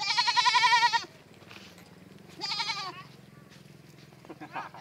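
Goat bleating twice: a loud, quavering call about a second long at the start, then a shorter one about two and a half seconds in.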